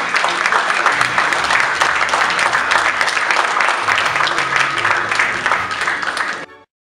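An audience applauding, a dense patter of many hands, over background music with low bass notes. Both cut off abruptly to silence about six and a half seconds in.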